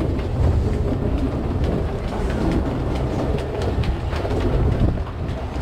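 Steady low rumble with scattered light clicks and clatters: a metro station escalator running, heard from on the escalator.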